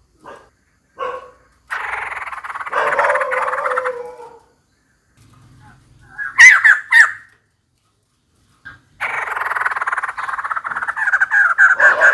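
Female white-crested laughingthrush calling: two short notes, then a long rapid rattling chatter for about two and a half seconds, a loud burst of sharp notes around halfway, and another long rattling chatter starting near the end.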